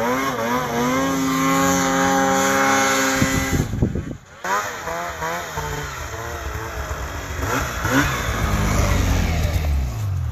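Arctic Cat Alpha One snowmobile's two-stroke twin engine revving hard in deep powder. The revs waver, hold at a steady high pitch for a couple of seconds, break off briefly about four seconds in, then rise and fall again before dropping to a low rumble near the end.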